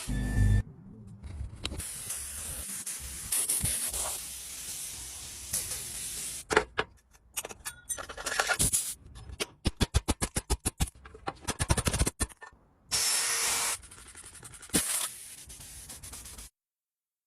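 A string of short, cut-together restoration workshop sounds: hissing like an aerosol spray, rubbing and scraping, and a fast run of clicks about ten seconds in.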